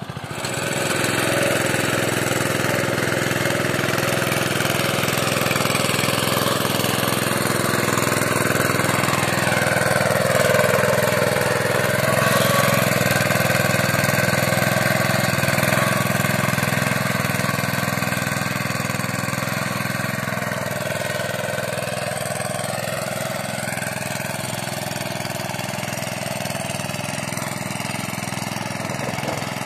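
Honda GX four-stroke petrol engine of a Meccanica Benassi BL-105 walk-behind tiller running steadily under load as it pulls a ridging plough through the soil. Its note dips and recovers a couple of times.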